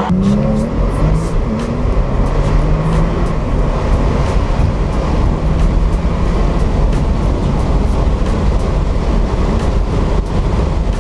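Porsche 911 Turbo's twin-turbo flat-six pulling hard at full throttle through third and into fourth gear toward 200 km/h. The engine is largely buried under a loud, steady rush of wind and road noise.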